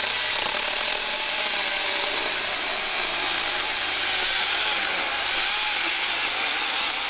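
New Huing 4-inch cordless mini chainsaw starting up and running steadily as its chain cuts through a 4x4 board.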